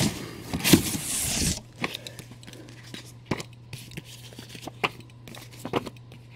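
Stacks of comic books rustling and sliding against each other and the cardboard as they are lifted out of a shipping box, followed by a few light taps as copies are set down on a pile.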